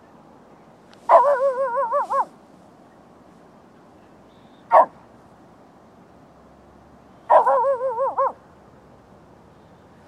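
Lhasa apso barking at deer: two drawn-out, wavering bark-howls of about a second each, roughly six seconds apart, with a single short bark between them.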